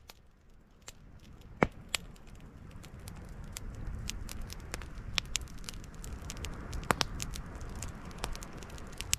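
Wood campfire crackling and popping, with irregular sharp pops, the loudest about one and a half seconds in and again near seven seconds, over a low steady rumble. The sound fades in and grows louder over the first few seconds.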